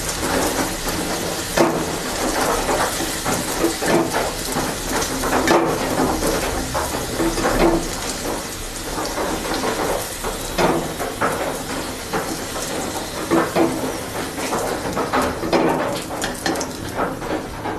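Hot oil sizzling in a steel kadai while fried potato cubes are scooped out with a wooden spatula, which scrapes and knocks against the pan again and again.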